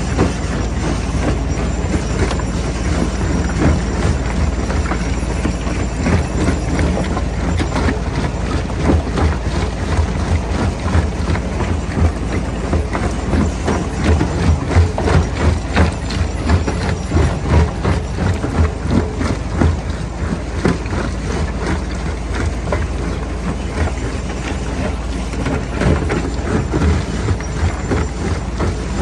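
Stone jaw crusher running with rock being broken in its jaws: a steady low machine drone under dense, irregular knocks and cracks of stone, heaviest about halfway through.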